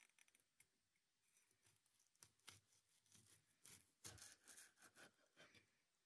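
Kitchen knife slicing through a cherry tomato, its skin and flesh giving a run of small, crisp crackles that come thicker and faster in the second half.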